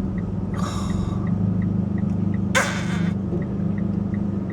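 Steady low hum of a car's engine and road noise inside the cabin, with a faint regular ticking about three times a second. Two sharp breaths from the driver cut across it, about half a second in and about two and a half seconds in.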